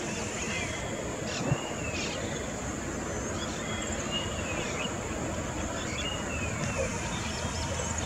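Outdoor ambience: steady background noise with a continuous high-pitched drone, and repeated short chirps of small birds, each a quick rising-and-falling note.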